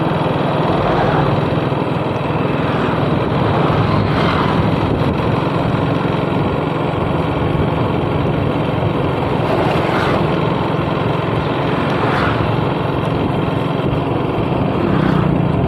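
Small motorcycle engine running steadily while riding along a road, mixed with a steady rush of wind and road noise.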